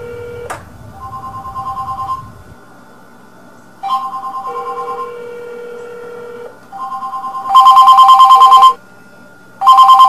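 Cell phone ringing with an electronic trilling ringtone, two alternating tones in bursts about a second long and a few seconds apart, the last two bursts much louder. The phone rings inside a microwave oven, a sign that cell signals get through the oven's shielding.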